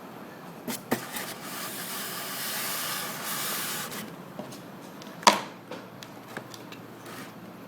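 Hands handling hard plastic laptop parts while the RAM module is put back. Two light clicks, then a stretch of rustling, scraping hiss lasting about two and a half seconds, then one sharp click about five seconds in, followed by a few faint ticks.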